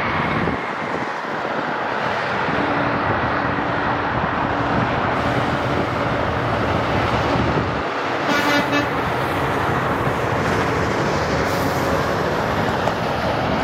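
Steady interstate traffic noise as a tractor-trailer and cars run along the highway below, the truck's engine and tyres giving a continuous hum. A short, higher-pitched toot sounds about eight and a half seconds in.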